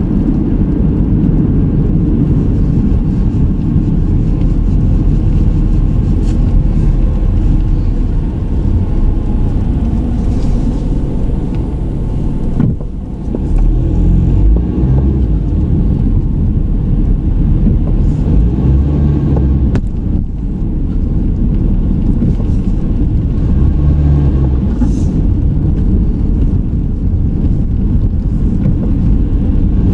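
A car being driven on town roads, heard from inside the car: a steady low rumble of road and engine noise, with a brief dip in level a little before halfway through.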